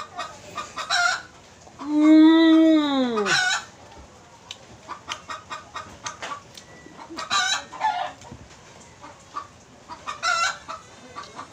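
A rooster crows once, about two seconds in, a single call of about a second and a half that rises and then falls in pitch, the loudest sound here. Chickens cluck throughout in quick, short, repeated calls, with a few louder squawks.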